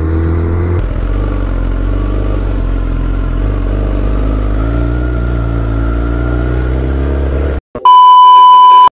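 Sport motorcycle engine running steadily at low riding speed, rising slightly in pitch about halfway through. Near the end it cuts off and a loud, steady test-tone beep sounds for about a second.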